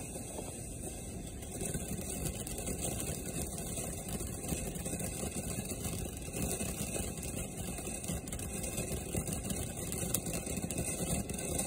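Ground fountain fireworks spraying sparks: a steady rushing noise with rapid small flickers and pops.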